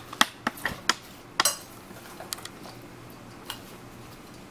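A hand mixing grated cabbage into a thick flour batter in a stainless steel bowl, with several sharp clinks against the steel in the first second and a half, then quieter squelching and an odd faint tick.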